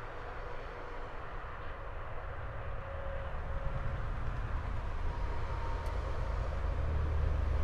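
Low rumble of a distant vehicle, growing steadily louder.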